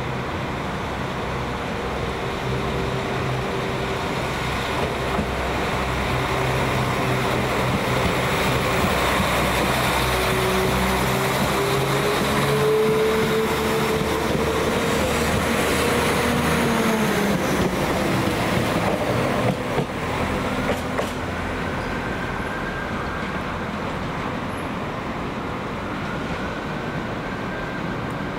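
A passenger train moving through a station: a steady low hum, then its drive tones glide up in pitch, loudest about halfway. A few sharp clicks come about two-thirds of the way in, and a higher whine rises again near the end.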